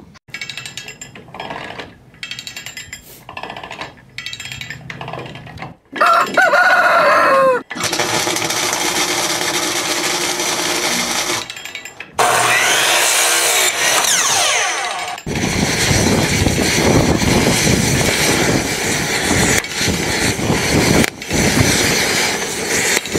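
A string of shop sounds. About six seconds in a rooster crows. From about twelve seconds a power chop saw spins up with a rising whine and cuts wood, and in the last part metal is ground with a steady harsh noise.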